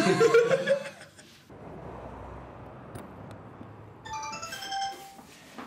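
A voice trails off in the first second, then a soft steady hiss, and about four seconds in a short run of high, ringing chime notes.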